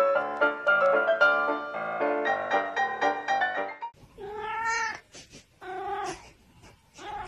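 Piano music for the first few seconds, then a black-and-white cat meowing twice in long, wavering calls, with a few short sounds after.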